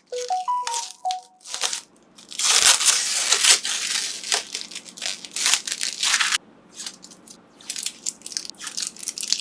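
Protective plastic film being peeled off PC parts, crinkling and tearing in repeated bursts, with the longest stretch from about two to six seconds in. A short chime of a few rising and falling notes plays in the first second or so.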